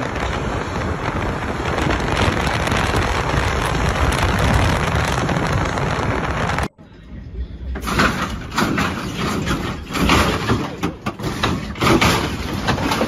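Steady rushing road and wind noise from a car driving through a road tunnel, which cuts off abruptly about two-thirds of the way in. After a short pause come uneven thumps and clatter from hydraulic lowriders hopping, with voices.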